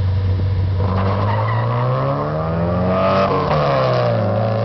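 A Nissan car accelerating hard past the listener: the engine pitch climbs for about two seconds, then drops sharply as it goes by, over a steady low drone.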